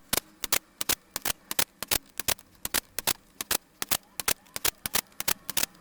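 A quick, uneven run of sharp clicks, about four a second, from work on a cassette deck's circuit board as a row of switch pins is being desoldered.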